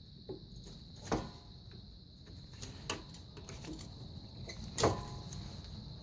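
A few sharp metallic knocks and clinks of hand tools on a car's brake caliper, the two loudest about a second in and near the end, each ringing briefly.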